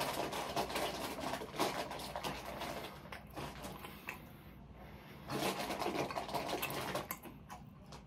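Close-miked chewing and wet mouth sounds from eating a meatball marinara sub, in two spells with a short pause about three seconds in.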